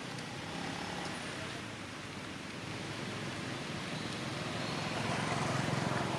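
Steady outdoor background noise: a low rumble with hiss and no distinct events, growing a little louder about five seconds in.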